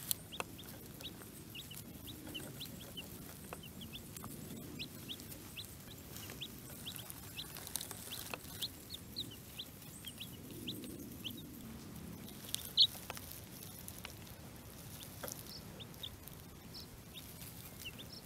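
Several baby chicks peeping: short, high cheeps scattered irregularly throughout, with one louder peep near the middle.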